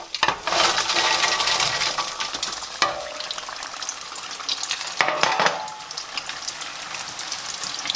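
Once-fried sweet potato slices tipped into hot oil for their second fry, sizzling loudly as they go in and settling into steady bubbling. This second fry drives off moisture left inside the slices to make them crisper. A couple of light knocks come about three and five seconds in.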